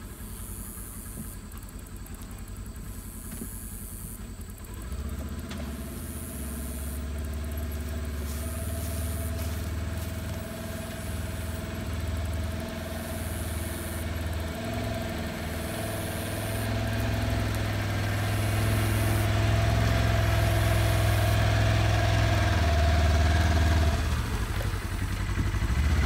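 Polaris side-by-side utility vehicle's engine running at low speed while it tows a mobile chicken coop on a hitched pole. It grows louder from about five seconds in, with a steady whine over most of it, and dips near the end.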